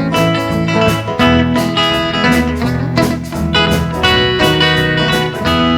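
Band playing an instrumental break, a guitar taking the lead over a steady beat.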